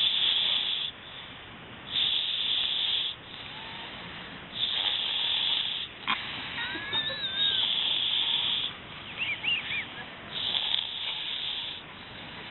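Person snoring: five loud, rasping snores about every two seconds, with a few thin whistling squeaks between them about halfway through.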